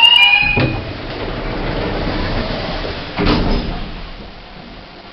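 Lift chime holding two steady tones, one high over one lower, fading out in the first second. Then a small hydraulic lift's sliding doors run for a few seconds, with a knock about half a second in and another about three seconds in.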